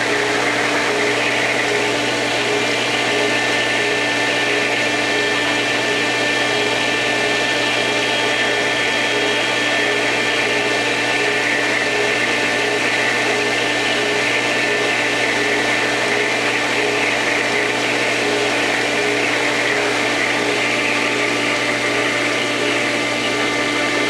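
Inground pool pump motor running steadily, a constant hum and whine with the air purged from the lines.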